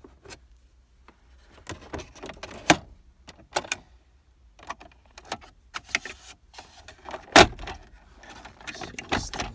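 Plastic interior trim panel being pried and worked loose with a thin screwdriver: a series of irregular clicks, knocks and rattles, the loudest knock about seven seconds in.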